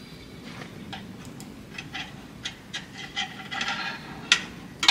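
A magnet taped to a screwdriver knocking and scraping against the inside of an empty metal tank while picking up metal chips. The clicks are irregular, come thicker after about two seconds, and the sharpest two knocks fall near the end.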